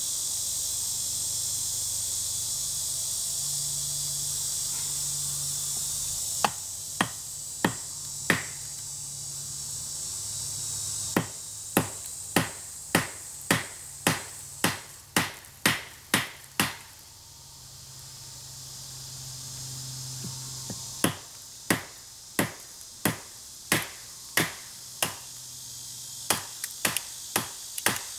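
Sharp knocks of a wedge being tapped into the end of a length of wood to split it. They start about six seconds in and come in runs of roughly two a second, with pauses between runs.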